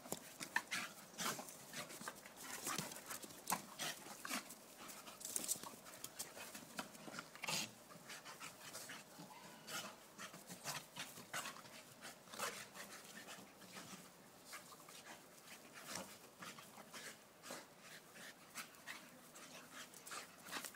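Two Staffordshire bull terriers play-fighting on grass: dog breathing and scuffling, a string of short, irregular, fairly faint sounds throughout.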